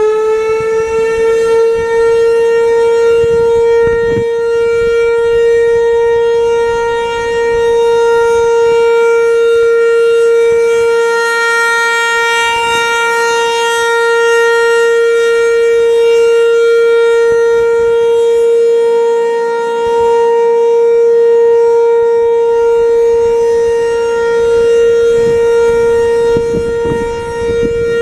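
Federal Signal 508 outdoor warning siren sounding a steady tone, held at a constant pitch at full speed, during a tornado drill test.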